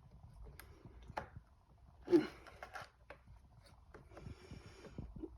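Hand-handling noises from a chainsaw's remote throttle cable and trigger being worked: scattered light clicks and some rustling, with one louder knock about two seconds in.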